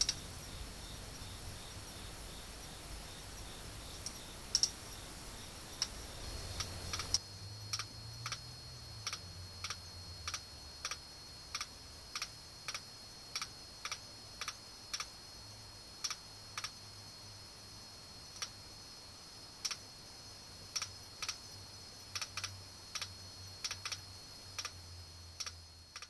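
Song of a male Xiphidiopsis subpunctata katydid, ultrasound near 50 kHz converted down into hearing range. It comes as short, separate clicks ("chit"), sparse at first, then from about seven seconds on at irregular intervals of about one or two a second, over faint hiss and a thin steady tone.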